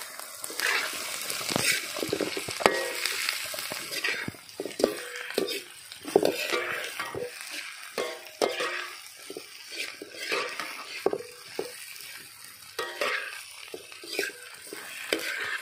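Mashed boiled potato and onions frying in oil in a kadai, sizzling, while a perforated steel skimmer stirs and turns them, scraping and clinking against the pan again and again.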